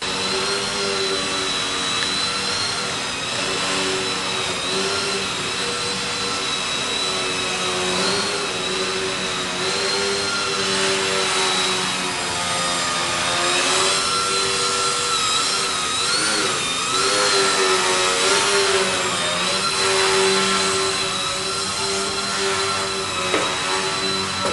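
Small electric indoor RC foam aerobatic plane's motor and propeller whining steadily. The pitch wavers with the throttle as it hovers and manoeuvres, with a brief rise and dip around the middle.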